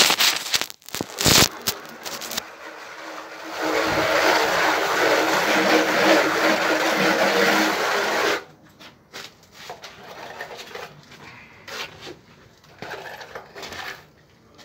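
Plastering tools working a textured render wall: scrapes and knocks of trowels and floats. About three and a half seconds in, a loud, steady whirring begins and runs for about five seconds, then stops suddenly.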